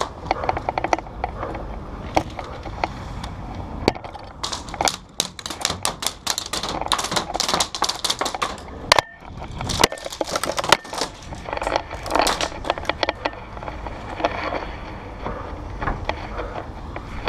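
Bursts of airsoft gunfire: rapid trains of sharp clicks, thickest about a third of the way in and again past the middle.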